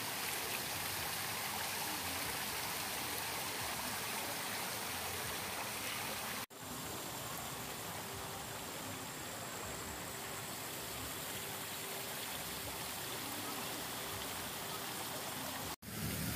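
Water cascading down a tiered fountain and splashing into its basin, a steady rush. It drops out abruptly about six and a half seconds in and again near the end, with a slightly quieter steady rush in between.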